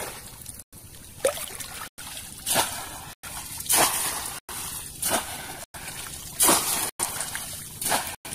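A bamboo fish trap swept and slapped through waist-deep water, splashing about once every second and a bit, six times, with water sloshing between strokes. The sound cuts out for an instant now and then.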